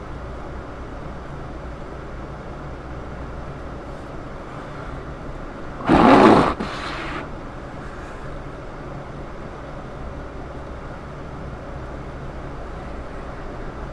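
Steady road and engine rumble heard inside a moving car's cabin. About six seconds in, a sudden loud rush of noise lasts under a second, then fades off.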